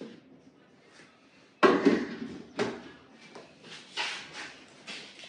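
Kitchenware being handled on a countertop: a sharp clunk about one and a half seconds in, another a second later, then a run of lighter knocks and clicks, as a plastic blender jug and a glass of juice are set down and moved about.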